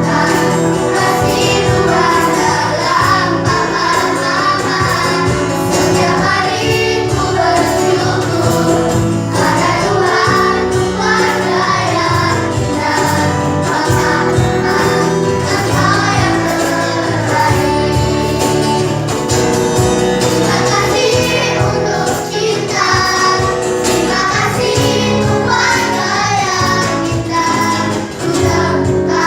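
A small group of singers singing a song together with instrumental accompaniment.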